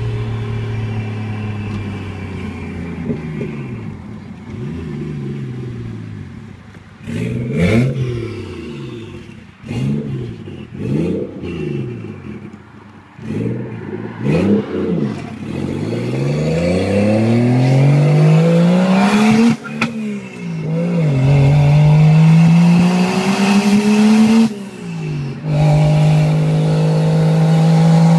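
Toyota 1JZ inline-six engine under way: the revs rise and fall in several short blips, then climb in a long pull, drop suddenly at a gear change about twenty seconds in, climb again and drop at a second shift, then hold steady. It runs cleanly, without misfires or boost leaks.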